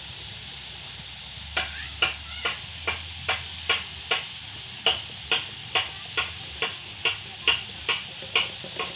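Oil sizzling steadily around pitha frying in an iron wok. From about a second and a half in, a regular series of sharp clicks, about two a second, rises above the sizzle as the loudest sound.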